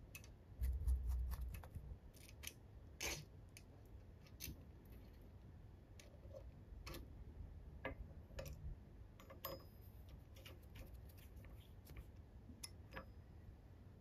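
Small metal parts of an engine model kit handled and fitted by hand: scattered light clicks and taps of metal on metal. A dull low thump about a second in is the loudest sound.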